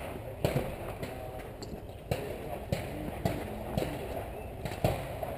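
A series of sharp knocks, several of them about half a second apart in the middle, over steady outdoor background noise.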